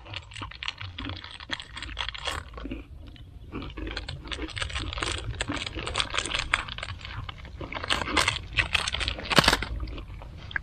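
Plastic snack wrapper crinkling as it is handled, with crunchy chewing: a dense, uneven run of small crackles and clicks.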